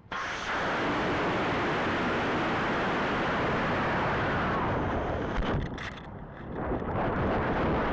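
Model rocket launch on a C11-5 motor: a sudden loud rushing hiss as the motor lights, going straight into a steady rush of air. After about four and a half seconds it turns gusty and uneven.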